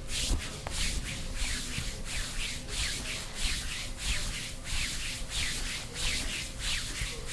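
Hands rubbing over skin in quick, even massage strokes, a dry hissing swish about two to three times a second.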